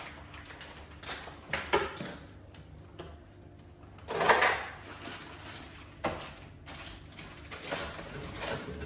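Household things being handled and put away: a few separate knocks and short clatters, the loudest about four seconds in.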